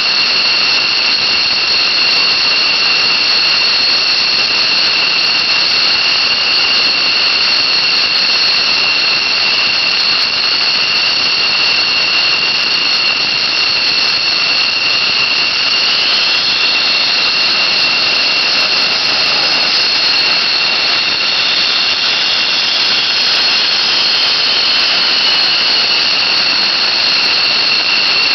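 F-16 Fighting Falcon's jet engine running steadily and loud, with a piercing high-pitched whine over its rush. The whine rises a little in pitch about halfway through and settles back down near the end.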